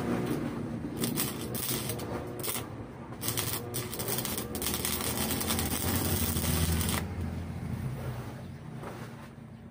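Stick electrode arc welding on steel: the arc crackles and sizzles steadily, then quietens about seven seconds in.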